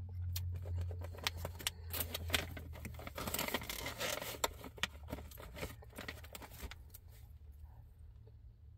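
Plastic jerky package crinkling and rustling as it is handled, with many scattered clicks, densest in the middle. A low hum underneath drops away after about two and a half seconds.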